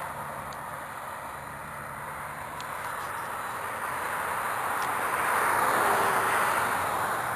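Road traffic passing: the tyre and engine noise of cars on a multi-lane road, swelling as one goes by about five to six seconds in and then fading.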